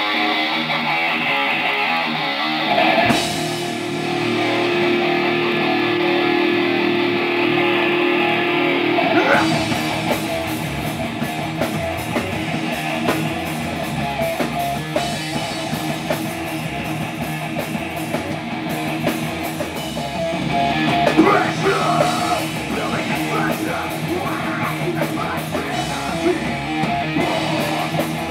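Live heavy-metal band playing: loud distorted electric guitars ring out alone at first, then about nine seconds in the drums and the full band come in.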